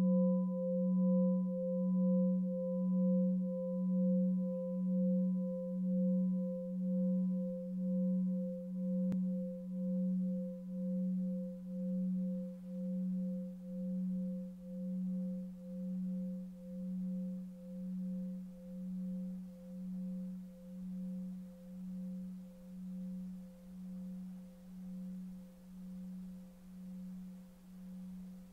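A struck bell's tone slowly dying away, its low hum pulsing about once a second, with fainter higher overtones; the highest overtone fades out about a third of the way through.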